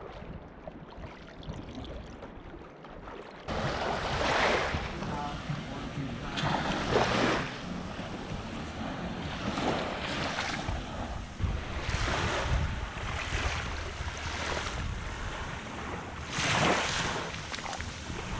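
Sea waves washing against a boat, with wind rushing on the microphone. The wash swells and fades about every two and a half seconds after a cut a few seconds in.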